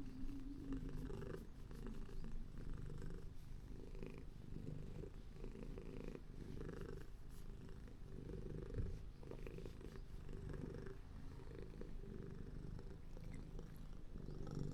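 A contented calico cat purring close up, the low rumble swelling and fading with each breath, with one brief soft bump a little past halfway.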